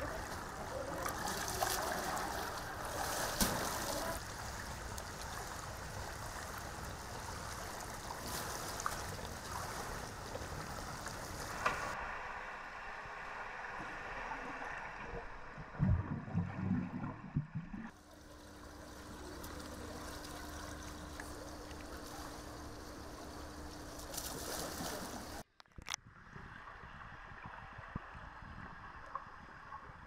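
Swimming-pool water lapping and splashing. About twelve seconds in, the sound turns muffled, as heard underwater, with a burst of bubbles at about sixteen seconds, followed by a steady low hum.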